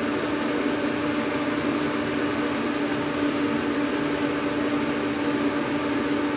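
Steady fan hum with one constant low drone, under a few faint swishes of a horsehair shaving brush working lather onto the face.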